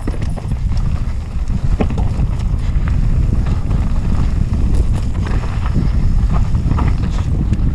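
A mountain bike descending a dirt trail at speed. Heavy wind buffets the microphone as a steady rumble, and the bike and tyres rattle and clatter irregularly over rough ground.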